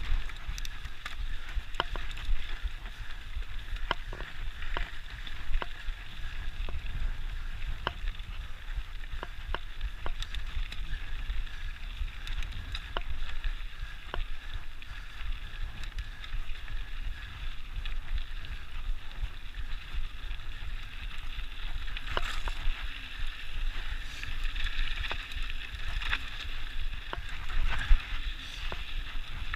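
Mountain bike rolling over dirt and gravel singletrack: steady tyre noise with frequent sharp rattles and clicks from the bike over bumps, and wind rumbling on the microphone.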